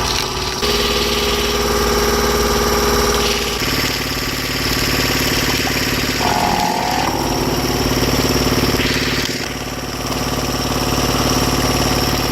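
Engine-driven wood-processing machinery running steadily. Its sound shifts abruptly a few times, and a brief higher tone comes about six seconds in.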